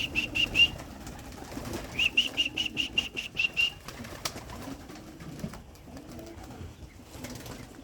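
Young racing pigeons cooing low and soft, with two quick runs of high, evenly spaced chirps, about six a second: one at the start and another about two seconds in.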